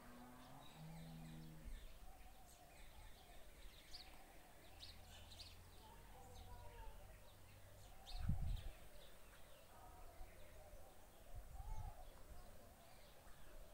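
Faint outdoor ambience with birds chirping in short high calls throughout, and a low thump about eight seconds in and another near the end.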